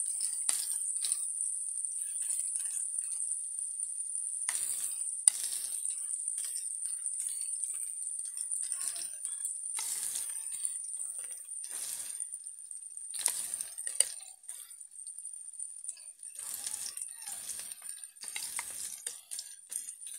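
Oil sizzling steadily in a frying pan as batter is spooned into tomato rings frying in it, with a metal spoon clicking and scraping at intervals and two sharper clinks, about five and fourteen seconds in.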